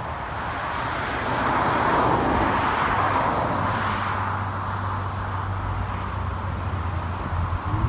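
Roadside highway traffic noise: a vehicle passing, loudest about two seconds in and then fading. A steady low hum joins about three seconds in.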